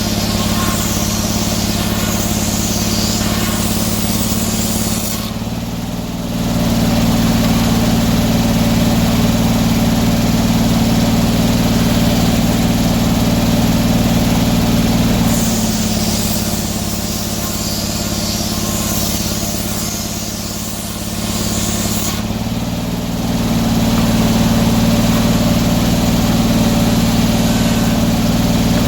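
Sawmill engine running steadily while the mill saws a knotty, hard pine log. A higher hiss from the cut comes and goes, and the engine gets louder twice, about six seconds in and again a little after twenty-two seconds.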